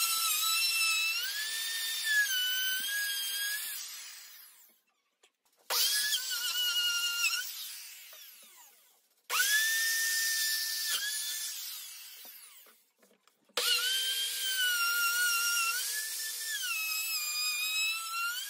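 Electric hand sander worked against pallet-wood table legs and apron in four runs. Each run starts abruptly with a high whine whose pitch dips and rises as the pad is pressed on the wood, then winds down after the switch is released.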